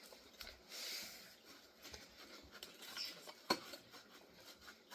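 Damp microfibre cleaning cloth wiping a fridge door: faint rubbing strokes, with a sharp click about three and a half seconds in.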